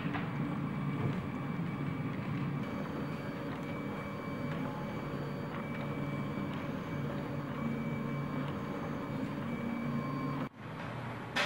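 RepRap 3D printers running: stepper motors humming and whirring, their pitch shifting from moment to moment as the axes move, over a steady high whine. The sound drops out briefly near the end.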